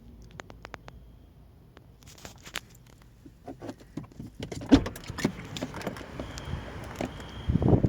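Irregular clicks and taps that grow louder through the middle, then a gust of wind buffeting the microphone near the end.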